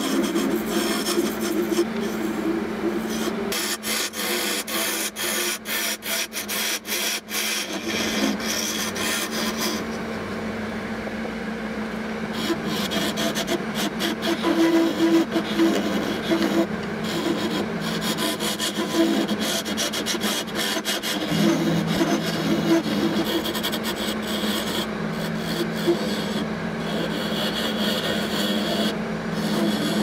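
A wood lathe running with a steady hum while a turning tool cuts the spinning resin shift knob and its timber neck, a scraping rasp that swells and eases as the tool is worked along. The cutting turns choppy for a few seconds about four to eight seconds in.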